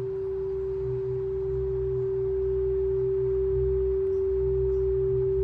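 Crystal singing bowl sounding one steady, pure, sustained tone that slowly swells in loudness, with a low rumble underneath.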